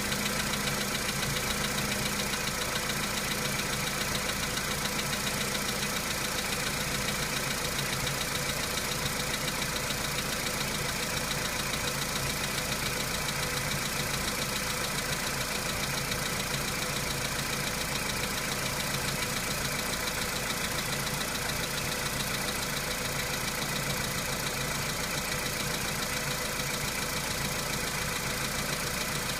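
Volkswagen Polo Sedan's petrol engine idling steadily after a cold start, with a rapid even knock. The owner says the knock goes away as the engine warms up, and does not know its cause.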